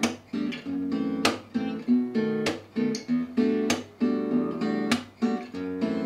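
Acoustic guitar played fingerstyle in a bossa nova–like rhythm, rocking between E minor 9 and F major 7 chords. Every second and a quarter or so a sharp percussive muted chop on the strings cuts the ringing chords.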